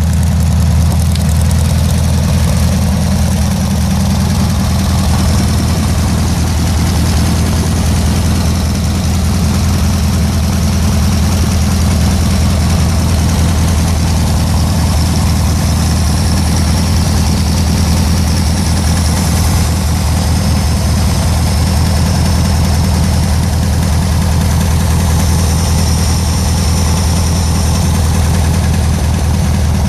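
Air-cooled VW-type flat-four engine idling steadily.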